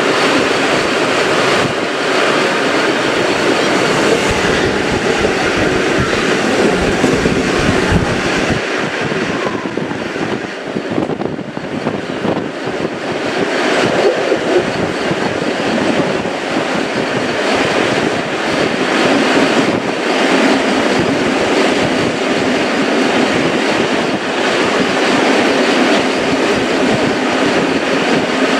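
A train running past close by on the track, with a loud steady noise of wheels on the rails throughout.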